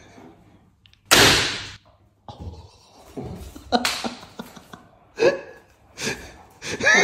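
A sudden loud smack about a second in, dying away over about half a second, followed by several short vocal cries and grunts.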